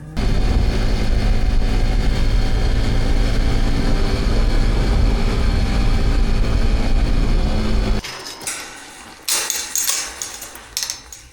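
Motorbike engine running steadily, cutting off suddenly about eight seconds in, followed by a few sharp knocks and clatters.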